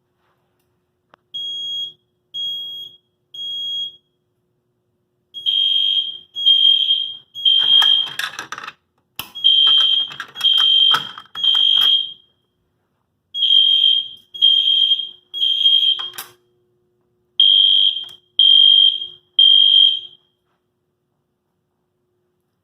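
Loud fire alarm sounder giving the temporal-3 evacuation signal: groups of three high, even beeps, one group every four seconds, five groups in all. The first group is quieter, and the beeping stops about twenty seconds in. A short rustling noise and a couple of sharp clicks fall between the beeps.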